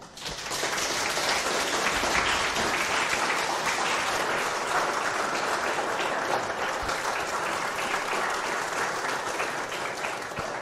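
Audience applauding, the clapping starting sharply about half a second in and holding steady.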